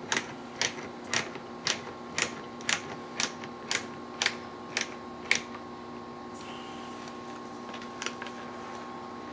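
Hand screwdriver driving screws into the plastic composter panels: a regular clicking, about two clicks a second, that stops about five seconds in, with a couple of faint clicks near the end, over a faint steady hum.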